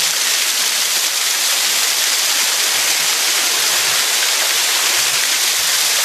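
A small waterfall pouring onto rock close by: a steady, loud hiss of falling and splashing water.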